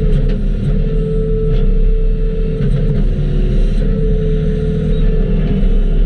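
Skid steer engine running steadily with a low rumble, a steady whine above it that wavers slightly, and faint ticks.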